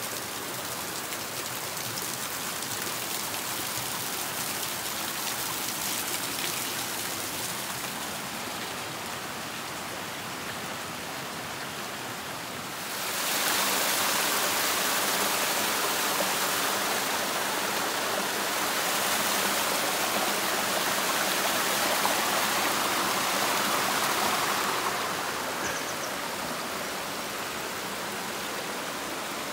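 Water dripping and trickling off a mossy rock overhang, with a rain-like patter. About halfway through, the louder, steady rush of a shallow stream running over rocks takes over, then softens a few seconds before the end.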